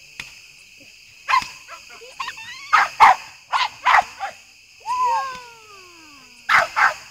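Dog barking in a run of short barks, then one longer whining call that slides down in pitch, then two more barks near the end.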